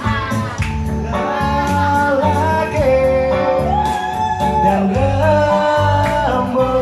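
Indonesian song sung into a microphone over amplified backing music with guitar and a steady bass line, the voice holding long notes of about a second each.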